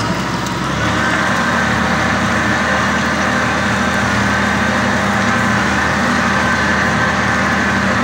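Tractor engine running steadily under load while pulling a plough, its note picking up slightly about a second in and then holding even.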